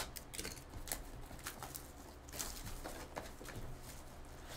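Clear plastic shrink wrap being torn and crumpled off a sealed trading-card box by hand: irregular crackles and rustles.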